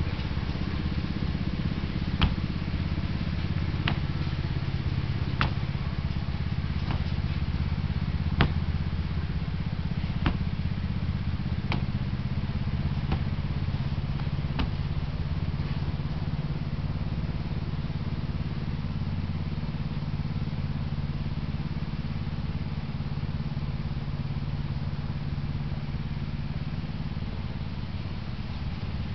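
A steady low engine drone, like a motor idling, runs throughout. Sharp knocks come about every one and a half seconds through the first half, then stop.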